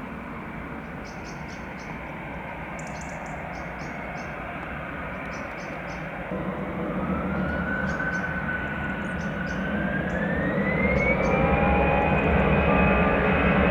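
Airbus A319 jet engines spooling up to takeoff power: a steady roar grows louder, and from about halfway in a whine climbs in pitch in two steps and then holds high.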